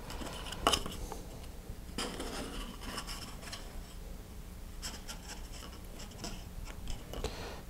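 Faint rubbing and rustling of fingers tying a Kevlar shock cord into a knot around a paper body tube, with a few light ticks.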